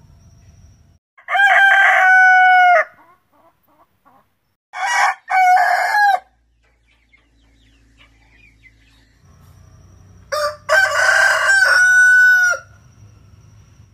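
Ayam Cemani roosters crowing, three crows in turn, each ending in a long held note.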